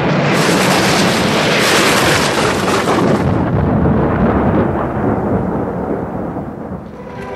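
Loud rumble of thunder that dies away over several seconds, its hiss fading first.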